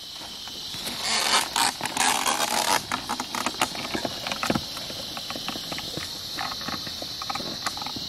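Ox-drawn wooden plough being worked through stony hillside soil: a burst of scraping and rustling about a second in, then scattered knocks and clicks, over a steady high drone of insects.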